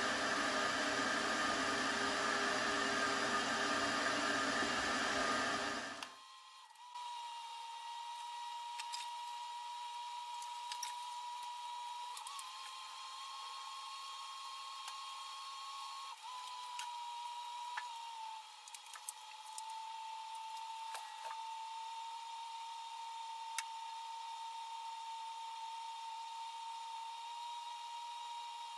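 Powder-coating spray gun blowing red powder with a loud steady air hiss that stops abruptly about six seconds in. After that a faint steady high whine remains, shifting slightly in pitch a few times, with a few faint ticks.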